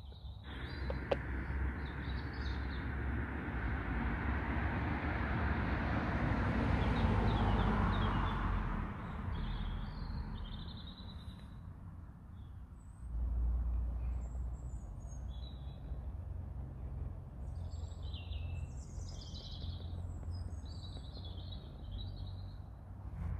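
Small birds chirping and calling in short scattered bursts over a steady low rumble. In the first several seconds a broad rushing noise swells and then fades away.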